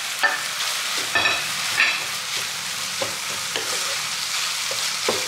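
Ground pork filling with shredded jicama and wood ear mushroom sizzling in a nonstick frying pan while a wooden spatula stirs and scrapes it, the steady frying hiss broken by short scrapes.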